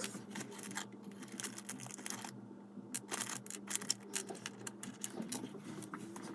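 Small plastic Lego pieces clicking and rattling as they are picked out and handled, a quick irregular run of small clicks over a faint steady hum.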